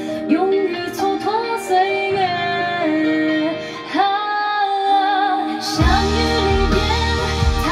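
A Mandarin pop ballad with a woman singing, played back through Spendor SP1 loudspeakers driven by a Western Electric 300B valve amplifier. About six seconds in, a fuller accompaniment with deep bass comes in under the voice.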